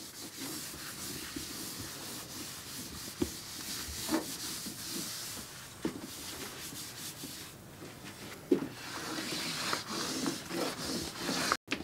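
A drawing stick scratching and rubbing back and forth across paper in quick strokes, with a few sharper taps where it strikes the sheet. It cuts off abruptly just before the end.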